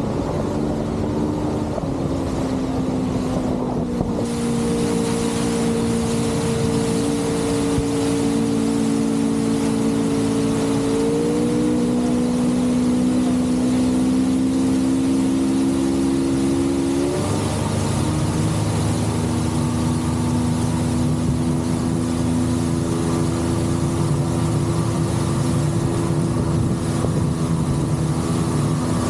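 Motorboat engine running at speed, a steady drone that rises slightly in pitch about eleven seconds in and shifts again around seventeen seconds, over the rushing hiss of the hull through the water.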